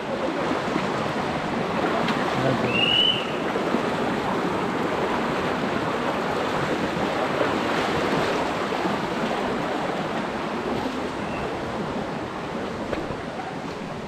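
Rocky stream rushing over stones, a steady broad rush that eases a little toward the end. A short high chirp cuts through about three seconds in.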